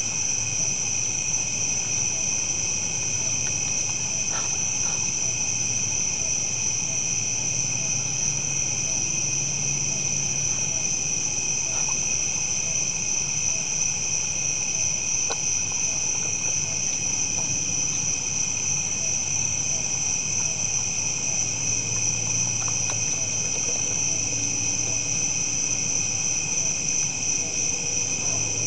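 Steady chorus of night insects, crickets and the like, a continuous high-pitched trilling at several pitches at once that never lets up. A few faint clicks sound now and then.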